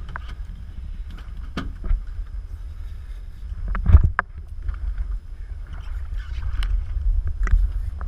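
A small fishing boat at sea gives a steady low rumble, with scattered knocks and clicks. The sharpest knock comes about four seconds in.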